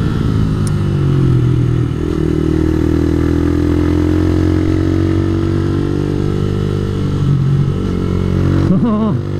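Yamaha YZF-R15 v2's 150cc single-cylinder four-stroke engine, fitted with a YRD full exhaust, running under load through a run of corners. The pitch shifts as the throttle is eased and rolled on, about two seconds in and again a few seconds before the end. Heard through a helmet-mounted microphone.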